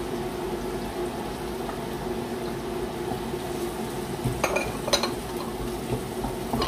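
Steady, a-bit-noisy sound of water heating toward the boil, with chopped onion and garlic sizzling gently in a nonstick frying pan. A little past the middle come a few scrapes and knocks of the spatula against the pan, and a sharper knock at the very end.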